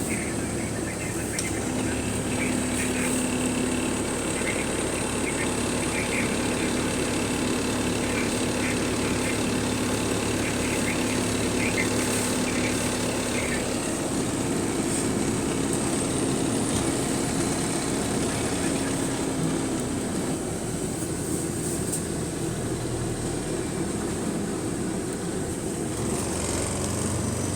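Bus engine and running gear heard from inside the passenger cabin: a steady hum with a held tone, and light rattling clicks through the first half.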